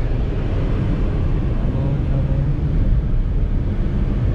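A car cruising at highway speed, heard from inside the cabin: steady engine and tyre-on-road noise with a constant low hum.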